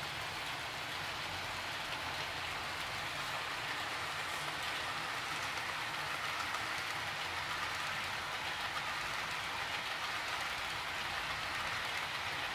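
HO-scale model freight train of grain hopper cars rolling steadily along sectional track behind CN diesel locomotives. It makes a continuous rattle of small wheels on rail, with a faint motor hum underneath.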